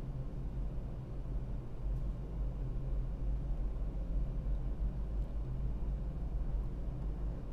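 ASD tug's diesel engines running steadily while standing by, heard on board as a low, even hum.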